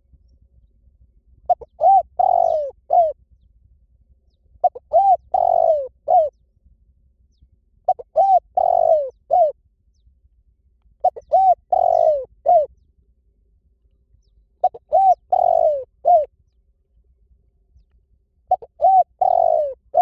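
Spotted dove cooing: a phrase of about four coos, two short ones, a longer drawn one and a short final one, repeated six times about every three seconds.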